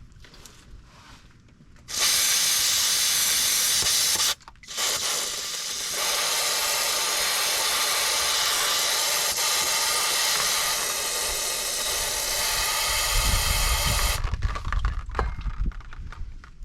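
Aerosol cleaner spray hissing in two bursts, used to wash spilled oil off the engine around the oil filter. A short burst of about two seconds is followed by a brief break, then a long burst of about ten seconds that cuts off sharply. Handling knocks follow.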